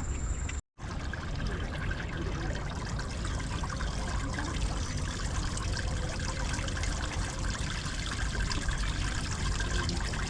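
Hot spring water running and trickling steadily, with a brief break in the sound a little under a second in.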